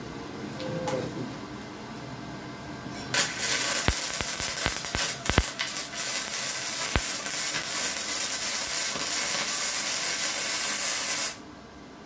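Flux-core arc welding with self-shielded 1.0 mm E71T-GS wire on a Redbo MIG-120: the arc strikes about three seconds in, with several sharp pops over the next few seconds, then a steady crackling hiss that stops suddenly near the end.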